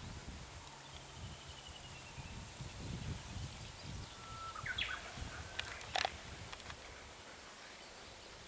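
Countryside outdoor ambience with a low rumble, a short bird call a little before the middle and a few sharp clicks about six seconds in.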